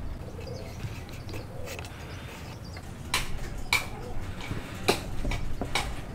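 Wooden workpiece knocking against a wooden workbench as it is handled and turned, with several sharp, separate knocks in the second half after a quieter start.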